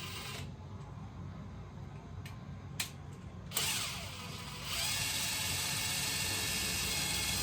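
Cordless screw gun driving a screw: a short whir about three and a half seconds in, then the motor running steadily for about three seconds near the end.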